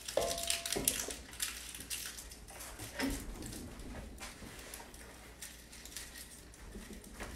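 Kitchen handling noises: scattered light taps and clinks of dishes and utensils being worked with, with one slightly louder knock about three seconds in.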